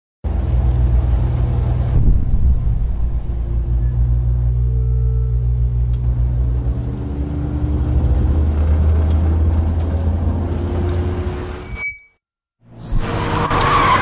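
Car driving, heard from inside the cabin: a steady low engine and road drone whose pitch drops in steps. It cuts out abruptly just after twelve seconds, and about a second later a loud, harsh skid or tyre screech begins.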